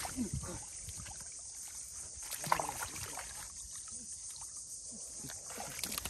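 Bare feet wading and sloshing through shallow muddy water, with irregular small splashes.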